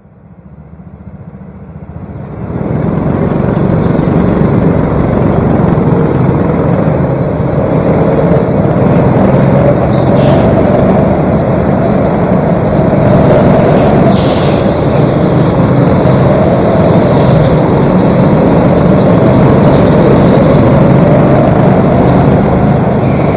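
Go-kart engine running under way, heard from on board the kart, with other karts' engines close by. The sound fades in over the first two or three seconds, then stays loud and steady.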